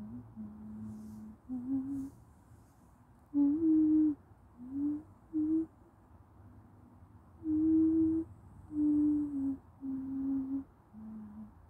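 A person humming a slow tune without words: a string of held notes at changing pitches, with short pauses between them.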